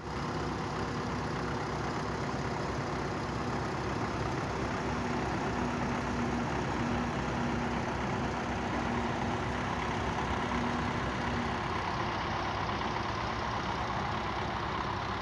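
Heavy diesel engine running steadily: a Doosan excavator at work loading mud into a tipper truck. A faint steady hum drops away about eleven seconds in.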